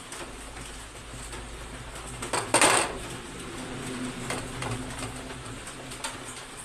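Metal kitchen utensils and vessels clinking lightly, with one short, louder rattle about two and a half seconds in.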